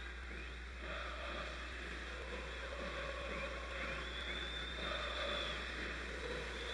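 Steady roar of a large football stadium crowd, with faint singing among the fans. A thin, high whistle sounds for about a second and a half near the middle.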